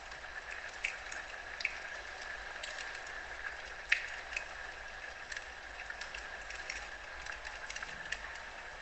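Fire crackling in a fireplace: a steady hiss with frequent irregular sharp pops, the loudest about four seconds in.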